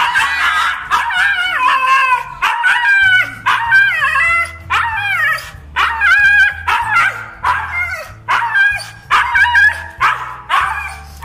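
Siberian husky howling and yowling, more than a dozen short calls in quick succession, each bending up and down in pitch.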